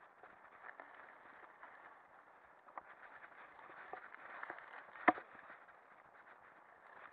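Lapierre mountain bike rattling and clattering over a rough dirt trail, picked up through its handlebar-mounted camera, with many small knocks and one sharp loud bang about five seconds in.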